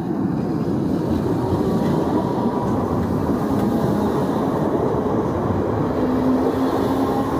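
Merseyrail Class 508 third-rail electric multiple unit passing close by at the level crossing. It makes a steady, loud rumble of wheels on the rails, which swells in the first second as the train reaches the crossing, with a faint steady hum coming in during the second half.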